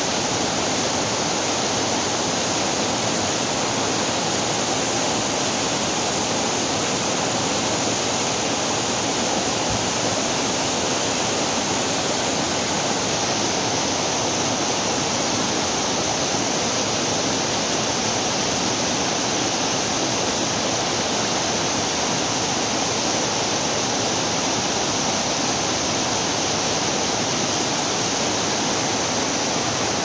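Mountain waterfall pouring down and rushing over boulders into a rocky stream: a loud, steady rush of water.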